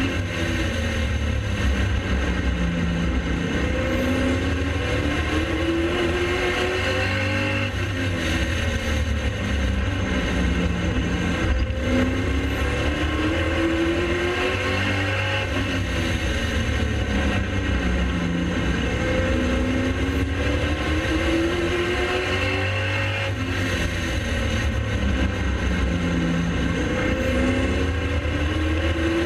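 Pro late model race car engine at racing speed. Its pitch climbs and falls over and over every few seconds, accelerating on the straights and backing off for the turns.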